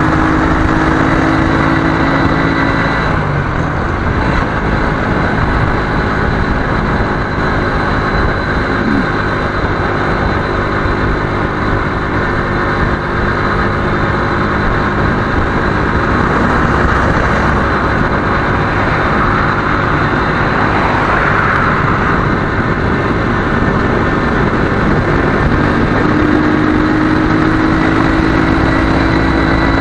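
Motorcycle running steadily at highway speed, heard from a helmet-mounted camera, with a heavy even rush of wind and road noise over the engine's hum.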